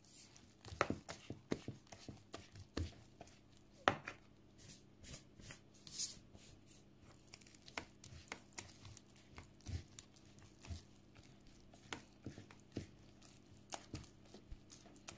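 Balloon whisk stirring thick cake batter and flour in a plastic bowl: irregular soft clicks, taps and scrapes of the wires against the bowl, a few each second.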